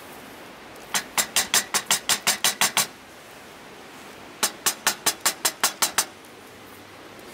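A stone knocking on a samovar's metal tap in two quick runs of about ten sharp taps each, some five or six a second, to free a tap that is stuck and will not open.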